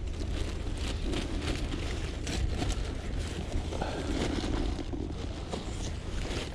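Steady outdoor background noise with a constant low rumble and scattered faint knocks.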